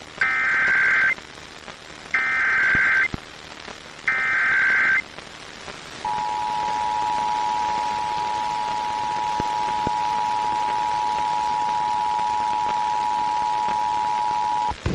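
Emergency Alert System alert received over radio: three short data bursts (the SAME header), each about a second long, then the steady two-tone attention signal held for about nine seconds. Together they open a Required Monthly Test.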